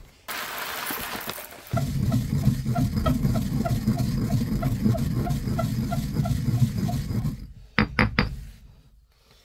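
Stone pestle grinding coffee in a stone mortar, a steady grinding with about three strokes a second, ending with a few sharp knocks of stone on stone near the end. A brief rustle comes before the grinding starts.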